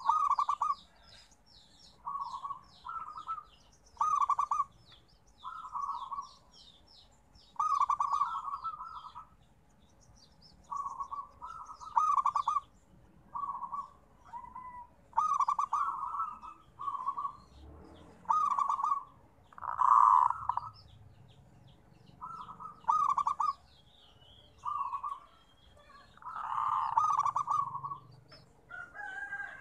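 Zebra dove (perkutut) cooing: short phrases of rapid, stuttering coo notes repeated every second or two.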